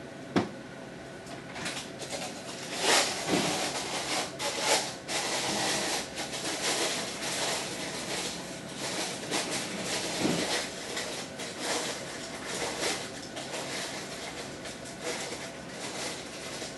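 Irregular rustling and handling noises with a sharp click about half a second in, over a faint steady hum.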